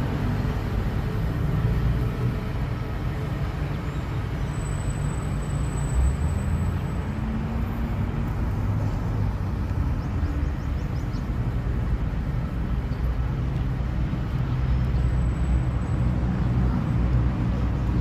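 Steady rumble of a vehicle moving along a road, with road noise.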